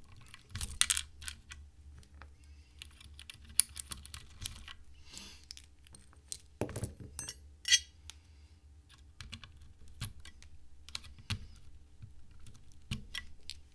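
Lubed and filmed Cherry MX Black Hyperglide linear switches, swapped to lighter Sprit 63.5 g springs, being pressed and bottomed out one key at a time. The keystrokes are irregular clacks, a few of them louder than the rest.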